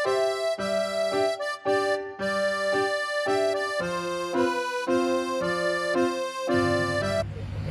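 Background music: a melody of held chords, with notes changing about twice a second. Near the end the music stops and a pet's low snoring comes in.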